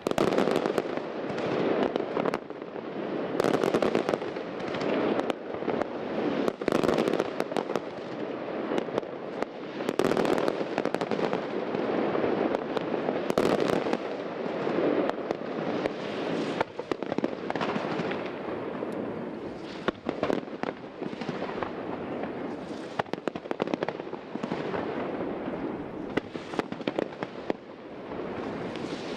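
Professional fireworks display: a dense, continuous crackling rush from gold fountains, comets and aerial bursts, broken by many sharp bangs and cracks throughout.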